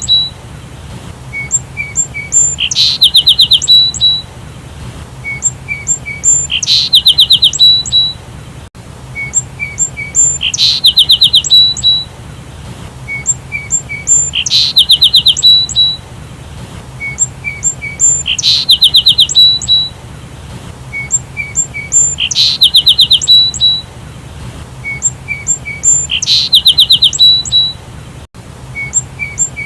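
Sparrow calls: a few short chirps followed by a fast, loud run of chirping notes, the same phrase repeating about every four seconds.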